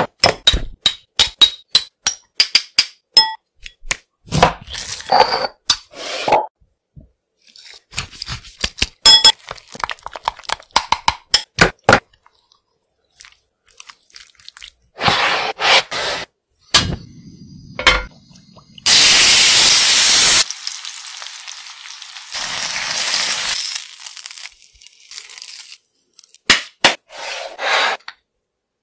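Food-prep sounds for spiced chicken legs: quick clicks and taps of jars and utensils, then gloved hands mixing chicken in a thick red spice marinade in a glass bowl. About two thirds of the way in comes a loud sizzling hiss lasting a second or two, which fades to a quieter hiss over the next few seconds as the chicken cooks.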